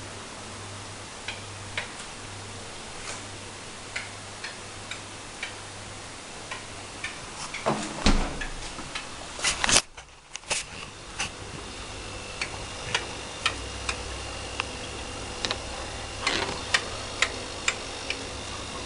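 AEG Santo refrigerator making irregular sharp clicks, roughly one or two a second, over a low hum, with a few louder knocks about halfway through. Its owner calls the clicking weird and does not know its cause.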